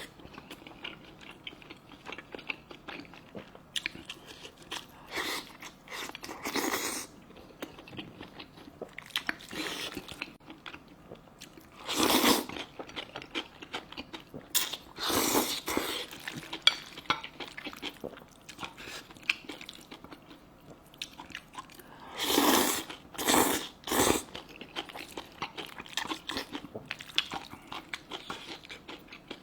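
A person eating close to the microphone: steady chewing and biting, with louder bursts of eating noise every few seconds.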